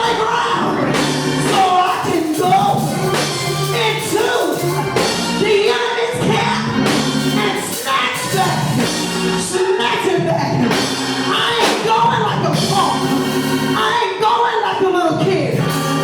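Church music: singing over a live band with drums keeping a steady beat.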